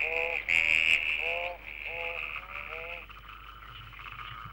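Frogs calling in chorus: a loud trill that fades after about a second and a half, over short rising croaks repeated every half second or so that stop about three seconds in.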